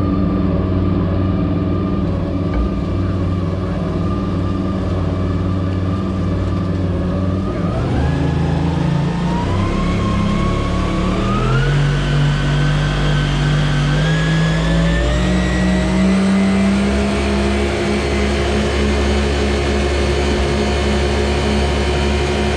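Mini jet boat's 1053cc Yamaha four-stroke engine running steadily under the load of pushing a second boat. About a third of the way in it starts rising in pitch in several steps as the throttle is opened.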